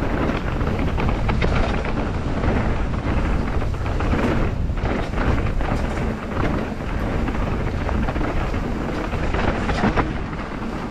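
Mountain bike riding down a trail: wind buffeting the microphone and the tyres rolling over the ground, a steady noisy rush with small rattles, easing slightly near the end.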